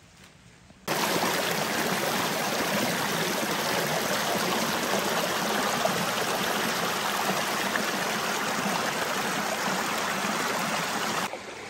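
Running water of a stream rushing steadily, starting abruptly about a second in and cutting off shortly before the end.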